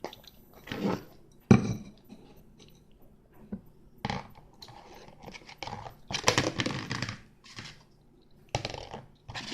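Homemade slime being squished and pulled apart by hand, making irregular wet crackling and tearing noises with scattered clicks. A sharp knock comes about a second and a half in.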